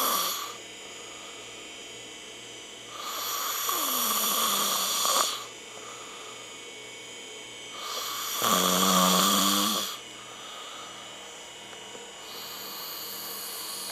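A person snoring: long, noisy breaths about every four to five seconds. The third, about eight seconds in, is the loudest and has a low buzzing tone.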